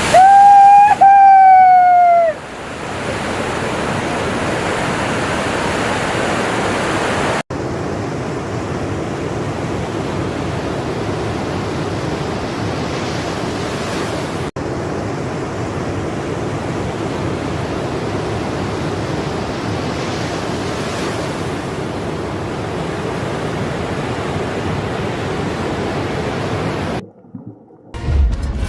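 Steady, even rushing water noise, like underwater ambience, broken by two momentary dropouts. In the first two seconds a loud held voice-like tone falls in pitch at its end.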